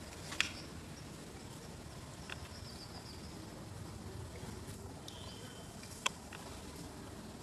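Quiet outdoor background with faint high-pitched chirps. Two sharp clicks, one just after the start and one about six seconds in, are the loudest sounds.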